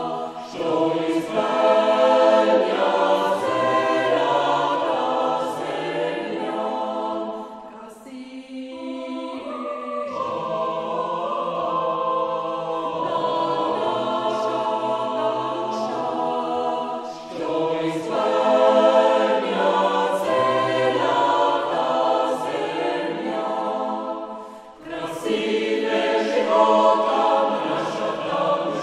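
Background music: a choir singing in long, held phrases, with two brief pauses between phrases.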